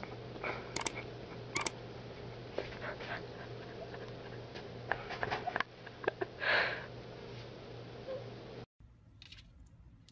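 A puppy squirming on its back on a carpet, snuffling, with one louder sniffing puff about six and a half seconds in. A few sharp mouse clicks sound near the start, and the sound cuts off shortly before the end.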